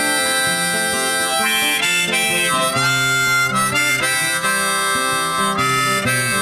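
Background music: an instrumental break in a song, a lead melody in long held notes over chords.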